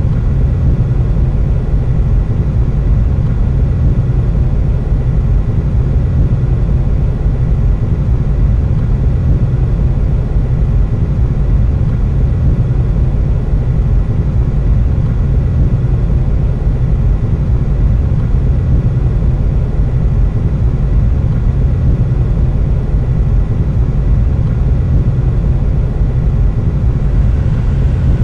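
Steady low rumble of a car idling at a stop, heard from inside the cabin.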